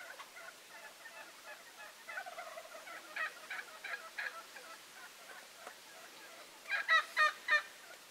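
A flock of wild turkeys calling from their roost trees: scattered short calls overlapping one another, then a loud run of four calls near the end.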